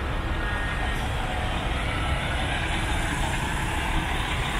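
Heavy diesel truck engine idling: a steady low rumble.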